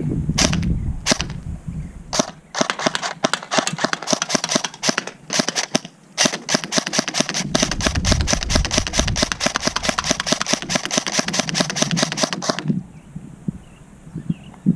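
Krytac Kriss Vector electric airsoft gun firing on semi-auto: a long string of rapid, sharp shots with two short breaks, stopping about two seconds before the end.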